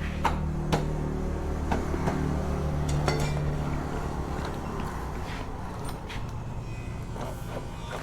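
Several sharp metallic clinks, mostly in the first three seconds, over a steady low engine-like hum.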